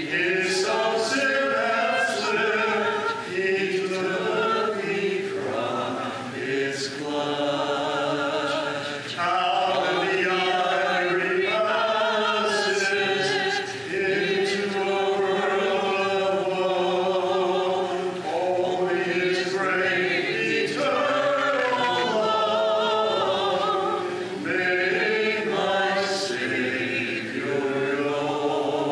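Congregation singing a hymn a cappella in parts, many voices together in long held phrases with short breaks between them.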